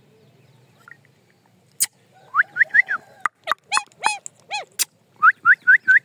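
Male Indian ringneck parakeet (rose-ringed parakeet) calling: after a quiet start, a run of short, harsh, arching calls begins about two seconds in, ending in a quick string of four or five rising calls.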